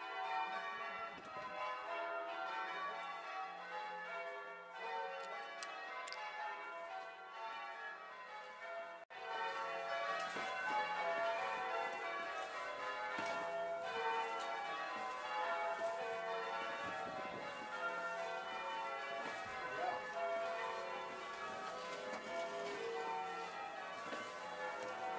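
Church tower bells being rung in changes, heard from inside the tower, a continuous overlapping peal of strikes. There is a brief break about nine seconds in.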